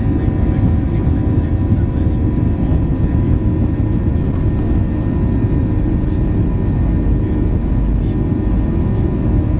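Steady engine and airflow noise inside the cabin of a Boeing 737-800 with its CFM56 turbofans at high power. It is a dense low rumble with several steady tones held above it.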